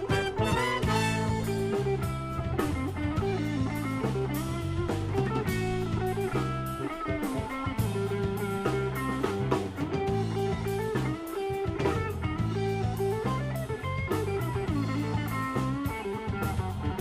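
Live funk-fusion band playing: electric guitar, electric bass and drum kit keep up a steady groove. The horn section of trumpet, saxophone and trombone plays at the start and drops out about a second in.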